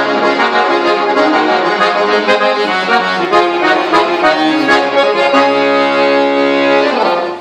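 Universal piano accordion playing a gaúcho vaneira tune, melody on the keyboard over button-bass accompaniment, then holding a final chord from a little past five seconds that cuts off about seven seconds in.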